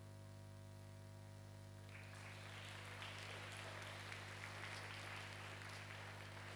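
Steady electrical hum, then from about two seconds in an audience starts applauding and keeps on, fairly quietly.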